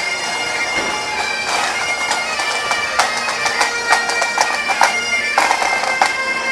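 Bagpipes playing steady held notes over their drones. From about halfway through, a rapid string of sharp firecracker bangs breaks in.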